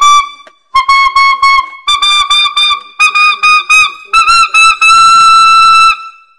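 Alto saxophone (P. Mauriat 76XVII) played in the altissimo register: groups of short, sharply attacked repeated notes climbing in steps. It ends on a long held top note of about a second.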